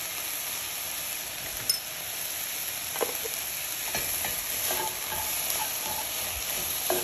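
Diced onion, celery and carrot sizzling steadily in olive oil in a cast-iron Dutch oven as they sweat, while a slotted spoon stirs through them, with a few light knocks of the spoon against the pot.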